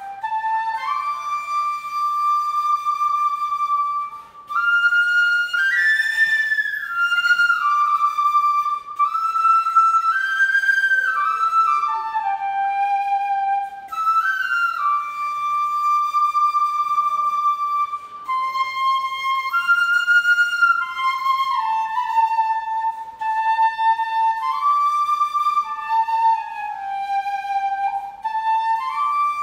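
Vietnamese bamboo transverse flute (sáo trúc) playing an unaccompanied slow melody, with long held notes and slides between them. There is a short breath pause about four seconds in.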